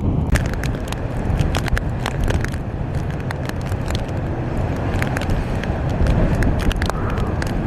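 Hurricane-force wind buffeting the microphone in a steady low rumble, with many sharp clicks and crackles scattered through it.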